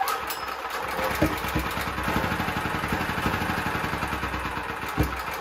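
A Honda GX270-clone single-cylinder engine on a portable generator, converted to run on propane, starts right away and runs steadily. It is already warm, with the choke off. A brief spike in the sound comes about a second in and again near the end.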